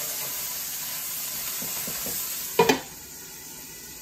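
Lobster tails sizzling in butter in a skillet, a steady frying hiss. About two and a half seconds in, a lid clanks down on the pan and the sizzle goes on quieter and muffled under it.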